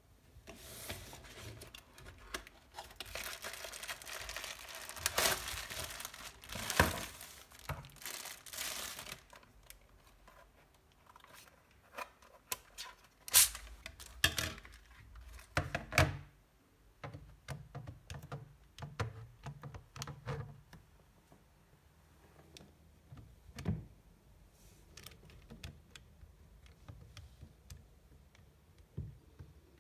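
Unboxing handling sounds: cardboard and plastic wrapping rustling and crinkling for several seconds, then sharp knocks and clicks as the Caslo CS-991ES Plus calculator and its hard slide-on cover are taken out and handled, with scattered light clicks of its keys being pressed in the last part.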